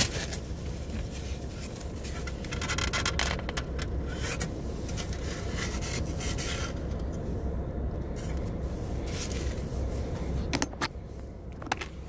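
Handling noise from a fried chicken sandwich in a plastic takeout clamshell: rustling, rubbing and scraping of the container and bun with scattered clicks as the top bun is lifted off, over a low steady rumble. The handling is busiest in the first half and thins out later, with a few more clicks near the end.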